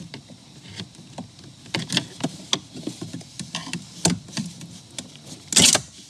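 Plastic wiring-harness connector and clip clicking and rattling as a flathead screwdriver pries it off its mount on the metal dash frame: irregular small clicks and knocks, with one louder, brief noise near the end as it comes free.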